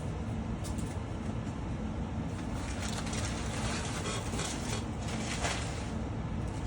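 Rustling and handling of packaging as items are taken out of a cardboard box, busiest in the middle, over a steady low background rumble.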